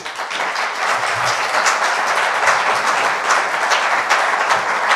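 Audience applauding: many hands clapping in a steady, dense patter that begins sharply at the end of a talk.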